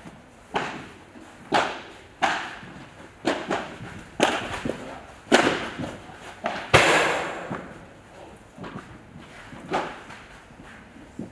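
Padel rally: the ball struck by solid padel rackets and bouncing on the court, each sharp pop echoing in a large hall, at an uneven pace of about one a second. A louder, longer crash comes a little after the middle, and a last hit near the end.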